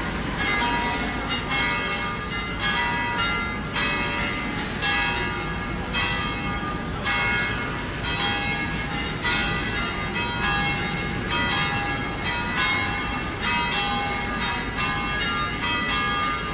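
Church bells pealing: a steady run of strikes, about two a second, each ringing on into the next.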